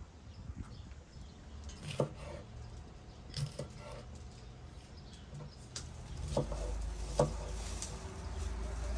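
Kitchen knife slicing a green pepper on a wooden cutting board: a few separate knocks of the blade against the board, about two seconds in, around three and a half seconds, and twice more later on. A low rumble comes in from about six seconds.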